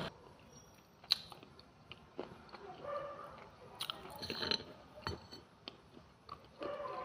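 Someone biting and chewing dry clay close to the microphone: sharp, irregular crunches with crumbling between them. The sharpest bite comes about a second in, and a quick cluster of crunches follows around four seconds in.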